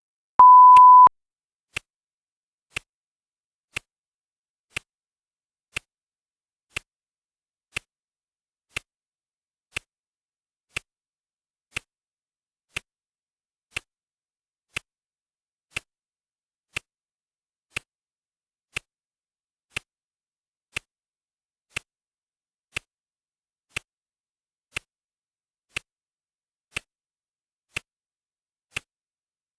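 Countdown timer sound effects: a single steady electronic beep about half a second in, the loudest sound, then clock ticking at one tick per second.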